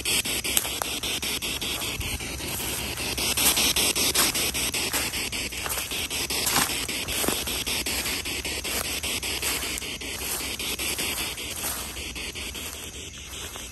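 Spirit box sweeping through radio frequencies: a steady hiss of static chopped by quick, evenly spaced clicks, many a second.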